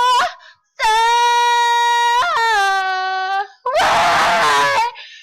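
A woman's solo singing voice, unaccompanied and without effects, holding two long high notes, then a harsh, strained note near the end.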